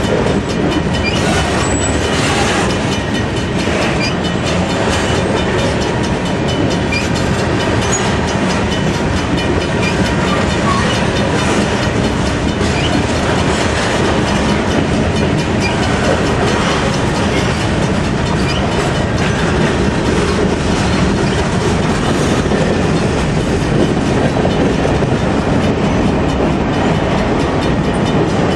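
Mixed freight cars (covered hoppers, autoracks, tank cars) rolling steadily past close by. A continuous rumble of steel wheels on rail, with clicking as the wheels cross the rail joints.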